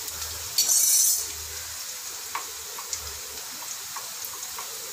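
Ginger garlic paste frying in hot ghee with browned onions in a pot, a steady sizzle that flares into a loud hiss about half a second in. A metal spoon clinks and scrapes against the steel grinder jar several times as the paste is scraped out.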